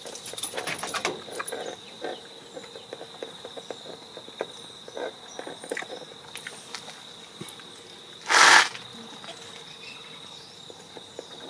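An insect drones steadily at a high pitch, with scattered faint ticks over it. About eight seconds in there is a loud, brief hiss lasting about half a second.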